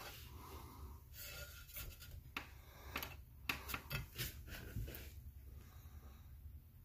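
Faint handling noises: a few light clicks and rubbing as a hand moves over the plastic parts of a small tabletop diamond bandsaw, growing quieter after about five seconds.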